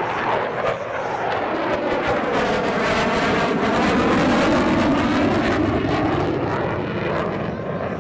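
Jet fighter flying past overhead. Its engine roar swells to a peak about halfway through and then fades, the pitch sweeping as it passes, with a ragged crackle.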